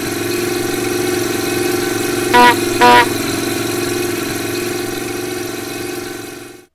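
Jeep monster truck engine running steadily as it drives by, with two short horn beeps about half a second apart roughly two and a half seconds in.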